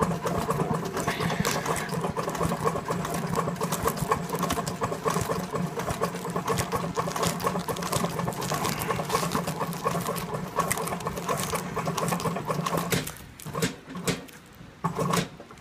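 Techsew heavy-duty industrial sewing machine stitching through thick nylon harness webbing, running steadily for about thirteen seconds and then stopping, with a couple of short bursts of stitching near the end.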